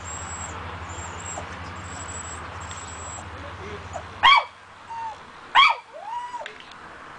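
A dog barks sharply twice, about a second and a half apart, each bark followed by a short whine.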